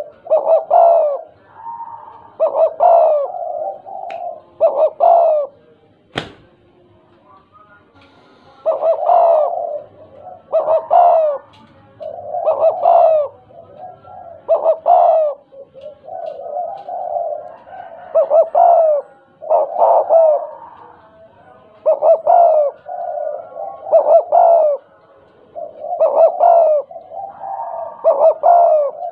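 A spotted dove (tekukur) cooing over and over, in phrases about every two seconds, with the stuttering 'gagap' delivery. A single sharp click about six seconds in.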